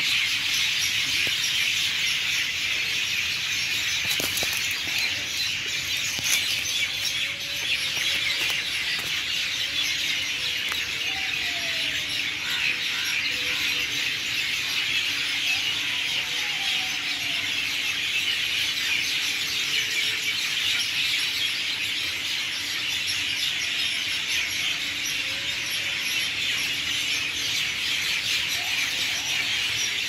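Dense, unbroken chorus of hundreds of small birds chirping and chattering together in one tree, the noise of a communal evening roost.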